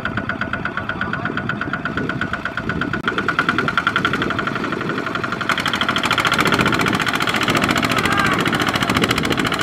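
Kubota walking tractor's single-cylinder diesel engine running under heavy load, hauling a trailer of rice sacks through deep mud, with a fast even beat of firing pulses. It grows louder and harsher a little past halfway as it is worked harder.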